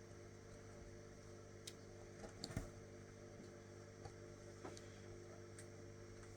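Near silence: a steady low hum with a few faint, scattered clicks, the small snaps of a latch hook pulling yarn through rug canvas.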